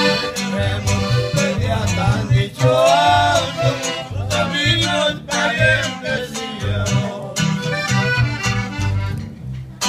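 Live norteño-style trio playing: a Gabbanelli accordion carries the melody over strummed acoustic guitar and plucked upright bass on a steady beat.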